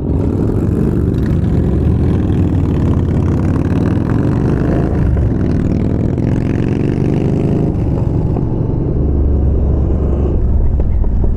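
Yamaha Bolt's 942 cc air-cooled V-twin running under way, its pitch rising and falling with the throttle partway through, over a steady rush of wind.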